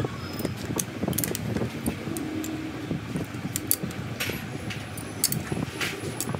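Irregular metal clicks, taps and rattles as a square steel bar is fitted between the jaws of a four-jaw lathe chuck and the chuck is turned by hand.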